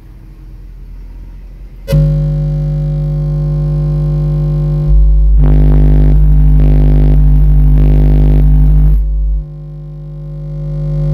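A 50 Hz bass test tone through two Soundstream XXX 15 subwoofers driven by Taramps Smart 3 Bass amplifiers at 0.7 ohm, heard inside the truck cabin: one very loud, deep, steady note with overtones. It starts about two seconds in, jumps louder about five seconds in, falls back after nine seconds, then swells again until near the end. The battery voltage sags to about 10 volts under this load.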